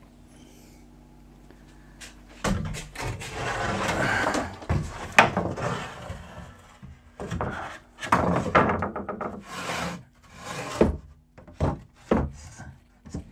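Timber boards being slid and pushed across a wooden shelf frame: wood scraping and rubbing on wood, with several sharp knocks as the boards are shifted into place. The scraping starts about two and a half seconds in.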